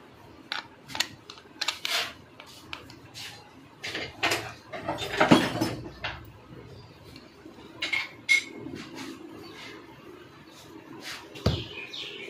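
Metal clinks and knocks of a truck starter motor's parts being handled and fitted together by hand, the armature shaft going into the drive-end housing, with a louder clatter about five seconds in.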